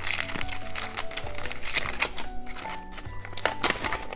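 Background music with steady melodic notes, over irregular crinkling of plastic candy packaging being handled and opened.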